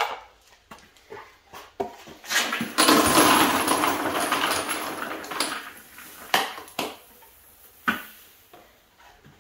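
Rifle brass cases and walnut and corn cob tumbling media being poured out of a vibratory tumbler bowl into a rotary media sifter. The pour makes a dense rattling hiss for about three seconds, fading away. Scattered knocks and clicks of the plastic bowl and sifter come before and after it.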